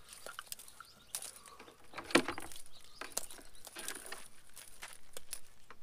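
Handling noise from a coiled shower hose and its sprayer head being lifted and untangled: scattered clicks, light rustles and small knocks, the sharpest knock about two seconds in.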